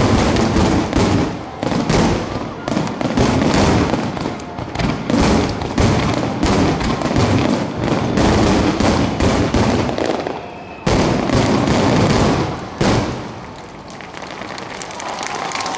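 Rapid barrage of aerial firework shells bursting, many bangs a second in an overlapping rumble, which stops abruptly a few seconds before the end and dies away.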